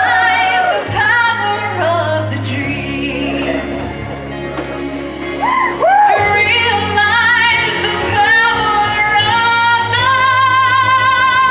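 A woman singing solo into a microphone over instrumental accompaniment, her voice wavering with vibrato. Near the end she holds one long, high note.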